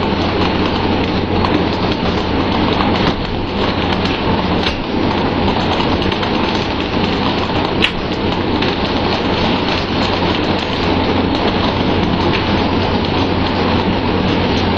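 Steady, rain-like rushing of water spray and churning sea along a pole-and-line tuna fishing boat, over a steady low hum from the boat's engine. A couple of sharp knocks stand out near the middle.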